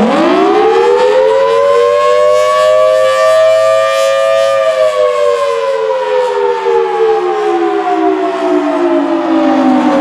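Federal Signal Thunderbolt 1000T tornado siren sounding the attack signal: its pitch rises over the first four or five seconds, falls slowly for about five, and starts climbing again at the end. The loudness wavers a little as the rotating horn turns.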